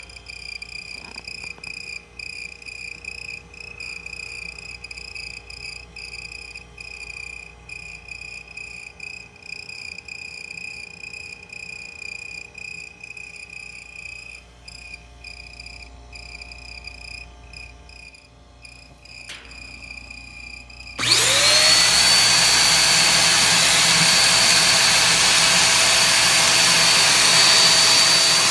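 Old refrigerator giving off a steady, high, chirping squeak like a mouse or cricket, the noise the owner cures by spraying WD-40. About 21 seconds in, a loud motor appliance starts and runs with an even rush and a whine that rises and then holds.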